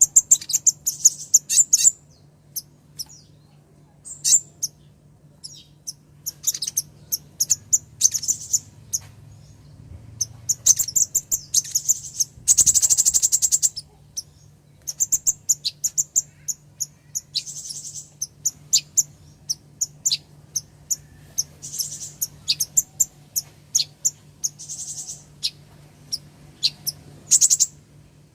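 Female kolibri ninja (purple-throated sunbird) calling: bursts of thin, high, rapid chirps and twitters with short pauses between, and a dense buzzy trill about halfway through. A faint steady low hum runs underneath.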